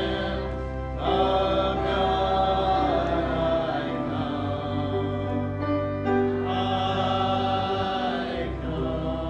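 Church congregation singing a hymn in several voices, with long held notes: the invitation hymn during an altar call.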